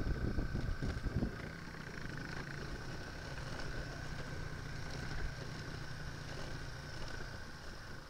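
Yamaha XT225 single-cylinder engine running at low speed, with wind buffeting the microphone for the first second or so, then a steady, quieter engine hum.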